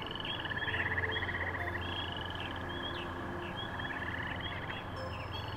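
Chorus of animal calls at the water's edge: many short, high chirps repeating throughout, with drawn-out rattling trills lasting about a second each. A low steady hum joins underneath from about a second in.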